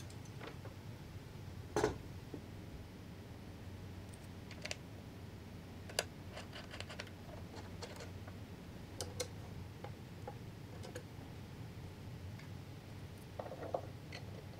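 Hand assembly noises on a workbench, with the electric planer switched off: a solid knock about two seconds in as the planer rig is set down on the plywood box, then scattered light clicks and taps of metal hardware and plywood being fitted, and a few knocks near the end, over a low steady hum.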